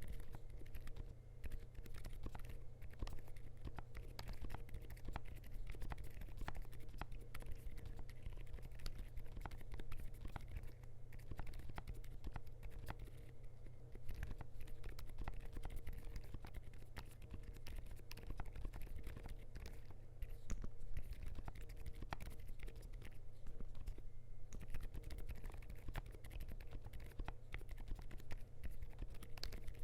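Continuous typing on a Zuoya LMK81 mechanical keyboard with lubed DUROCK Dolphin silent linear switches, a polycarbonate plate and PBT keycaps: a fast, steady stream of keystrokes.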